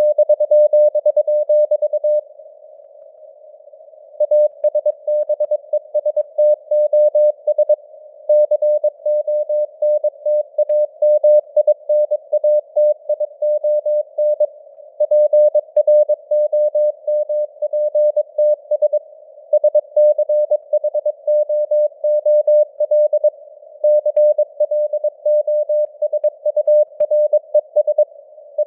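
Morse code (CW) sent at 22 words per minute: a single steady tone keyed on and off in dots and dashes over a narrow band of simulated radio-noise hiss. There is a pause of about two seconds between words near the start.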